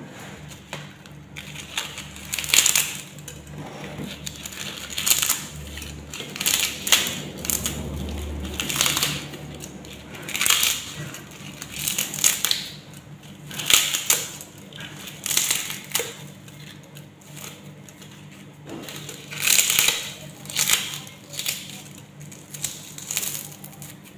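Dried fig leaves crackling as they are crushed by hand, in irregular bursts every second or two.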